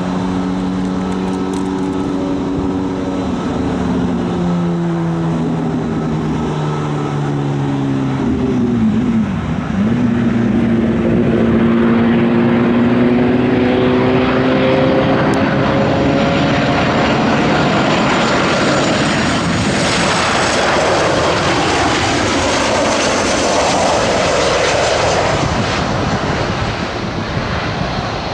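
A Boeing 737-900ER's CFM56-7B turbofans on final approach: a loud, steady jet rumble. Whining tones in it glide down, then back up after about ten seconds, as the airliner draws nearer. The sound grows fuller and hissier toward the end as the jet passes close.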